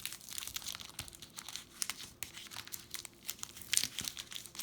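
Foil booster pack wrapper crinkling and crackling as it is handled and torn open, in a string of irregular sharp crackles.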